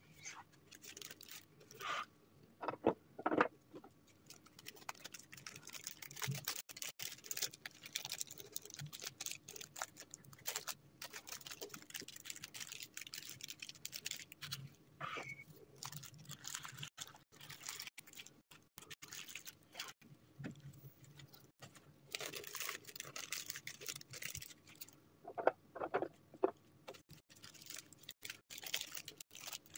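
Clear cellophane bag crinkling and rustling in irregular crackles as a chocolate tile is slid into it and the bag is handled.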